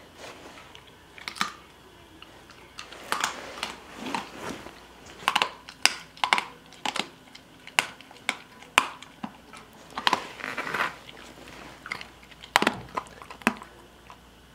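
A dog chewing a hard dog treat, with irregular sharp crunches and short pauses between bites.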